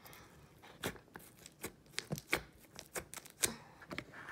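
Thick, glossy glitter slime being pressed by hand into a plastic tub, giving faint, irregular sticky clicks and pops.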